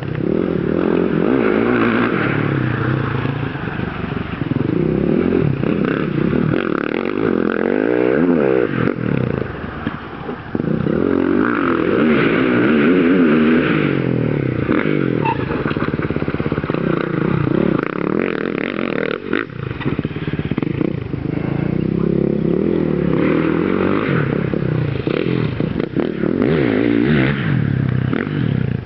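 Small youth dirt bike's engine revving up and down as it rides a rough dirt track, its pitch rising and falling over and over, with a brief let-off about ten seconds in.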